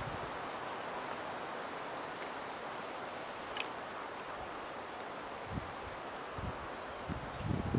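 A steady, high-pitched insect chorus of crickets or cicadas drones through the forest ambience. A few low gusts of wind hit the microphone near the end.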